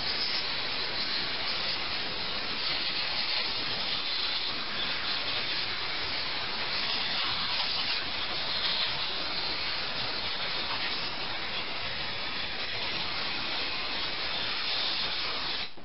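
Compressed-air blow gun hissing steadily, blowing out carburetor parts and passages; it cuts off suddenly near the end.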